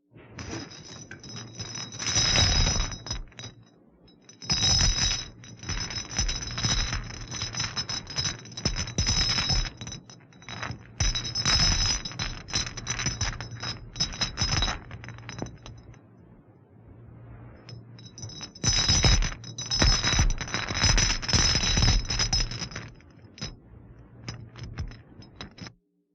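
Haunted-house sound effect of metallic rattling and clinking with a high ringing, over a low steady hum, coming in bursts with two short lulls, then cutting off suddenly near the end.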